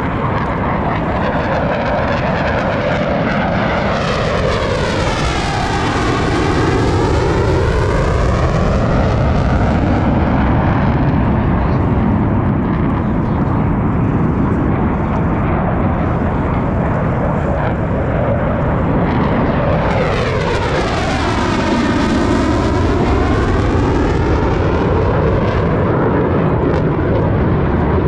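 Blue Angels F/A-18 Super Hornet jets flying past, loud continuous jet noise. Two passes overhead, about four seconds in and again about twenty seconds in, each with a sweeping, phasing whoosh.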